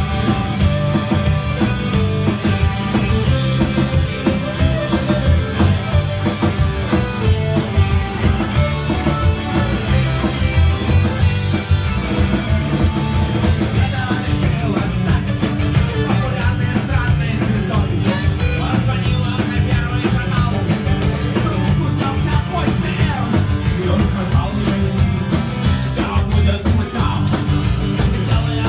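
Rock band playing live, with electric guitars, violin, bass and drums.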